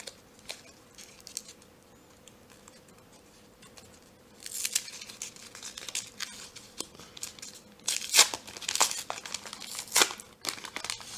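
A foil trading-card pack being torn open. Quiet handling for the first few seconds, then crinkling foil from about four seconds in, with several sharp tearing rips near the end.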